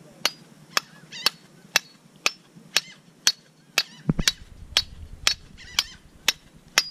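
Machete blade striking a conch shell again and again, a steady run of sharp knocks about two a second, chopping a hole in the shell so the conch can be cut loose from inside.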